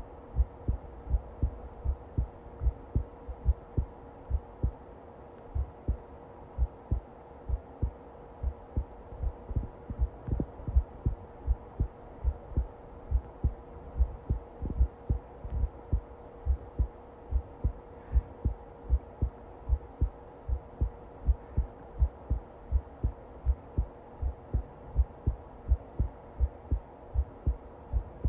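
Heartbeat recording: paired low thumps (lub-dub) repeating steadily, over a faint steady hum.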